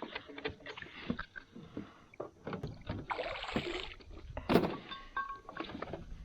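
Knocks and clatter of handling gear in a John boat, with a short rush of noise about three seconds in and one loud knock about a second later.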